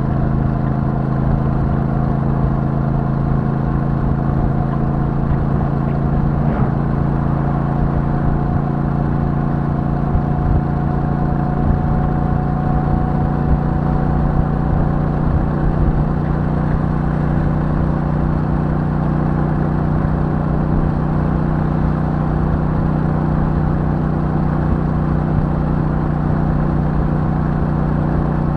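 Royal Enfield Super Meteor 650's 648 cc parallel-twin engine running steadily through its stock exhaust, holding nearly the same pitch throughout with a slight rise about a third of the way in.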